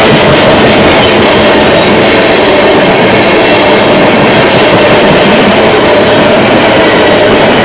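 Freight train of tank cars rolling past at close range: loud, steady rumble and wheel-on-rail noise, with a faint steady ringing note under it.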